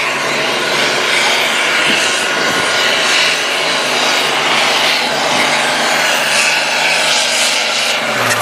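Super stock pulling tractor's turbocharged diesel engine run flat out under full load while dragging a weight-transfer sled, a loud, steady, unbroken engine note that drops off right at the end as the pull finishes.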